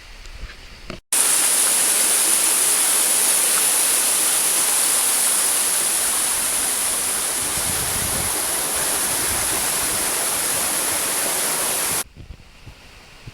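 Waterfall: falling water rushing loudly and steadily. It cuts in about a second in and stops abruptly near the end.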